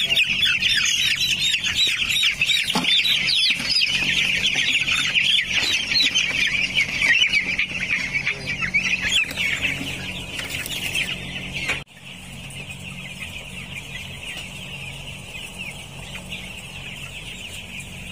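A flock of 12-day-old broiler chicks peeping, many high chirps overlapping into a dense continuous chatter. It drops suddenly quieter about twelve seconds in and carries on at the lower level.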